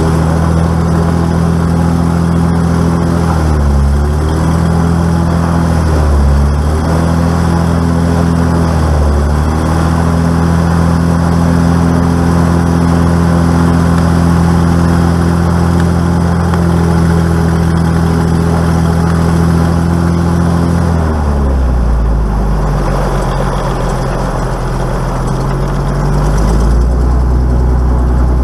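Single piston aircraft engine running steadily, heard from inside the cockpit. Its pitch dips briefly three times, then drops to a lower steady pitch about three-quarters of the way through.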